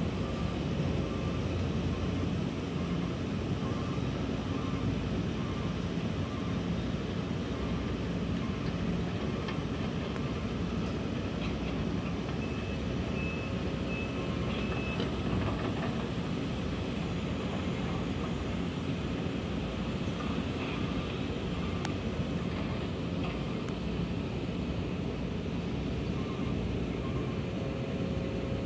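Distant Sumitomo SH350-6 hydraulic excavator's diesel engine running steadily as it works: an even, low rumble with faint whining tones, and a brief high whine about halfway through.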